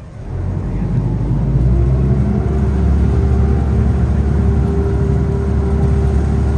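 River ferry's diesel engines powering up within the first second or so, then running steadily with a deep, pitched hum.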